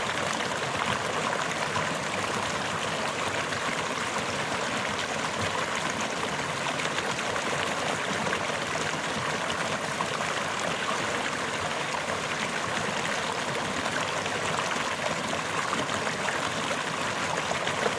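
Clear forest brook babbling steadily, water running and trickling over stones.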